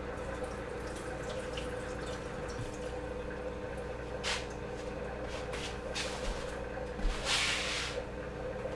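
Kitchen room tone: a steady low hum, a few light knocks, and a short hiss of noise about seven seconds in as things are handled at the stove.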